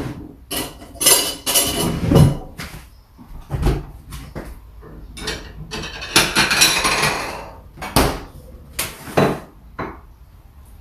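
Dishes and cutlery clattering in a string of separate knocks, with a longer scraping clatter a little past the middle, as the biko is set out to be warmed up.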